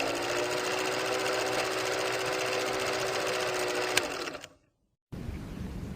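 A small machine running with a fast, even clatter over a steady hum, spinning up in pitch at the start and stopping about four and a half seconds in. After a short gap, a different rushing noise starts.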